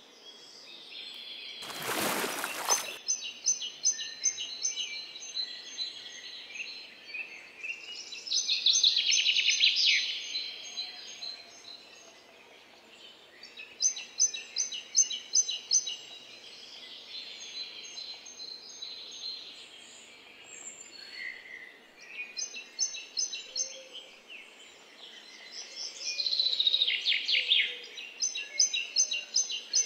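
Birds singing in bouts of high, rapid trills and chirps over a steady outdoor background hiss; a brief loud rush of noise about two seconds in.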